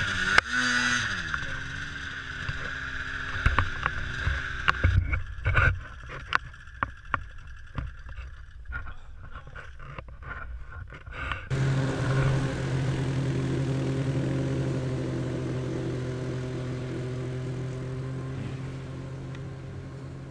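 Ski-Doo snowmobile engine revving up and down as it is worked out of deep slushy snow. Then comes a few seconds of sharp knocks and clatter, and from about halfway the engine runs steadily at an even pitch as the sled travels across the lake.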